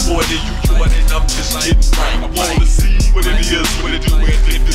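Hip hop music with a rapped vocal over repeated deep bass notes.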